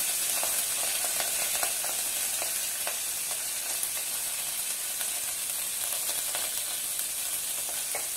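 Tempering sizzling steadily in hot oil in an aluminium pot, with scattered small crackles: mustard seeds, cumin, garlic, curry leaves and onions frying.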